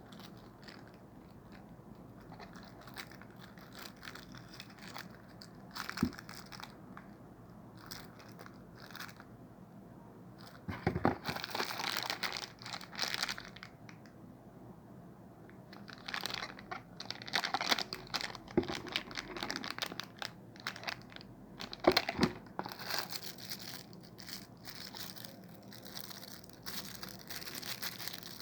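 Packaging being unwrapped by hand: crinkling and rustling of plastic wrap in irregular spells, with a few sharp knocks of parts being handled.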